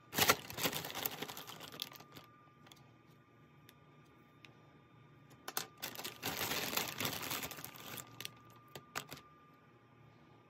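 A hand rummaging through a zip-top plastic bag full of wax crayons: the plastic crinkles and the crayons clatter against each other. It comes in two spells of a second or two, the second starting about five and a half seconds in, and is followed by a few separate clicks.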